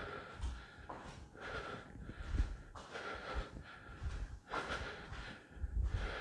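A man breathing hard to catch his breath after an exercise interval: heavy, noisy breaths about every second or so.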